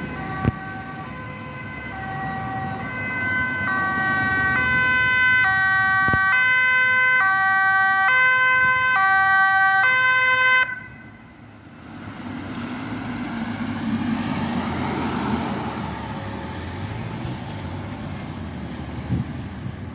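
Ambulance two-tone siren alternating between a high and a low pitch, growing louder as it approaches, then cutting off suddenly about halfway through. After that, vehicle engine and tyre noise swells and fades as traffic passes.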